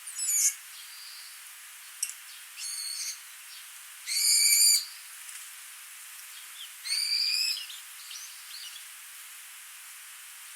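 A bird giving four loud, harsh, buzzy calls a couple of seconds apart, with a few fainter calls between them, over the steady hiss of a small stream.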